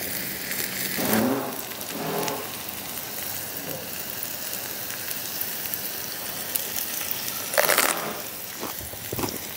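Pork belly sizzling on a stone grill pan over a portable gas burner, a steady frying hiss. Near the end a louder burst of noise from construction next door briefly rises over it; it is loud enough to be taken for thunder.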